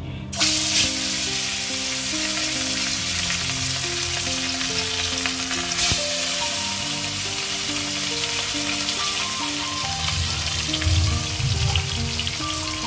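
Food frying in hot oil in a kadai: a loud sizzle starts suddenly just after the start as the pieces go into the oil, then carries on steadily, with a single sharp click about six seconds in.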